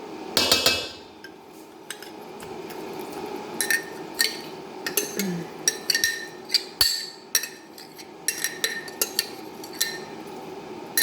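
A spoon scraping and clinking against a container in a run of short, sharp clinks as chunky applesauce is spooned out into a bowl, with a louder clatter about half a second in.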